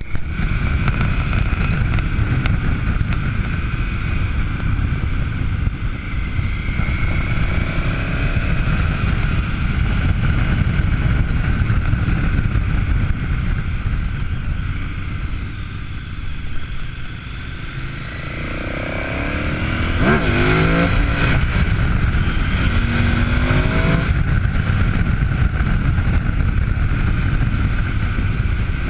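KTM V-twin adventure motorcycle running on the move, heard from the handlebars with wind rushing over the microphone. The engine eases off about two-thirds of the way through, then revs up and down several times over the next few seconds.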